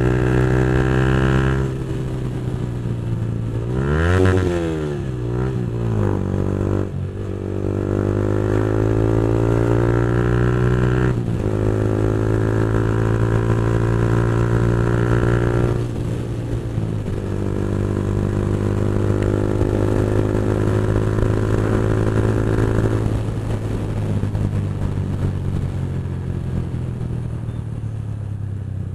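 Yamaha 155 cc single-cylinder motorcycle engine with a loud aftermarket full-system exhaust, running at cruising speed while riding. The pitch holds steady, drops as the throttle is eased a few times, and swoops up and down briefly about four seconds in.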